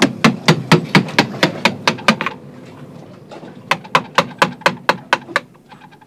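Hammer striking a nail: a quick run of about ten blows at about four a second, a short pause, then a second run of about eight, ending in a few light taps.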